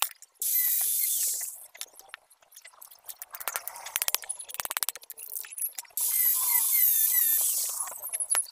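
Light metal clinks and taps as a hammer and a small steel sprocket are worked against a flat steel blade. A rapid run of clicks falls in the middle, and two spells of loud hissing come, one near the start and one near the end.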